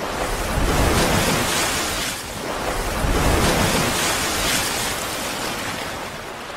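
Rushing, surf-like whoosh sound effect for an intro animation. It swells about a second in and again around three seconds, then slowly fades.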